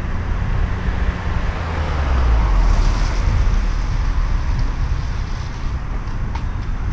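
A car passing close by on a wet road, its tyres hissing and engine rumbling, swelling about two seconds in and then fading. Wind buffets the helmet-mounted microphone throughout.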